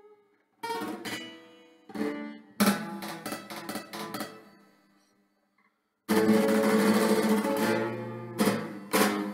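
Nylon-string acoustic guitar: a few plucked notes and a strummed chord that rings out and fades to near silence. About six seconds in comes a loud, sustained rapid strum, followed by two sharp strummed chords near the end.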